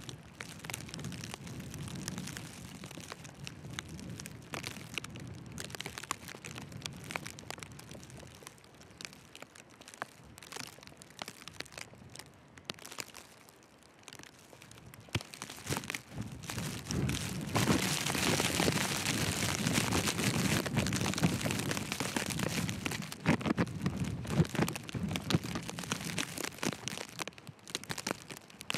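Footsteps crunching in fresh, deep snow, with wind and blowing snow hissing and buffeting around, louder for about ten seconds in the second half.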